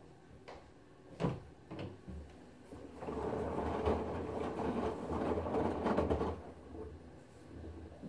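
LG front-loading washing machine tumbling a load in a lot of water: a few knocks, then from about two seconds in the drum motor hums as the drum turns and the water sloshes, easing off near the end.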